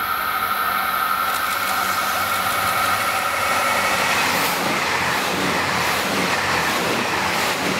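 JR Hokkaido KiHa 283 series limited-express diesel multiple unit passing close by at speed, its diesel engines running. From about four and a half seconds a louder rush of wheels on rail takes over as the cars go past.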